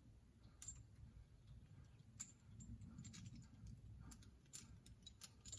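Near silence with faint, scattered sharp clicks of ice-tool picks and crampon points tapping and scraping on rock, over a low rumble.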